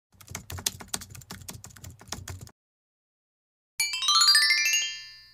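Intro sound effects: rapid computer-keyboard typing clicks for about two and a half seconds, then after a short pause a quick descending run of bright chime notes that rings out and fades.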